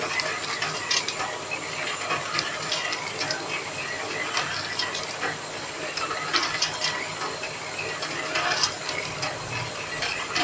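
Tube ice pieces clicking and clinking irregularly against each other, over a steady low hum.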